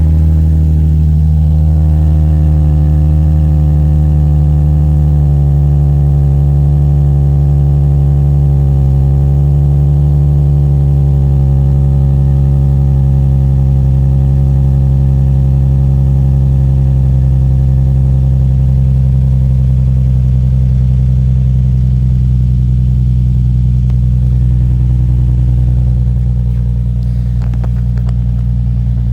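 Nissan 350Z's VQ35HR V6 idling fast just after a cold start, through a Z1 pipe-back dual exhaust with its removable silencers fitted. It is a steady, loud exhaust drone that settles slightly lower near the end as the idle comes down.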